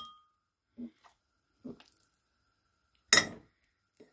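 A metal fork knocking and clinking against a ceramic dish: a couple of soft knocks, then one sharp clink with a brief ring about three seconds in.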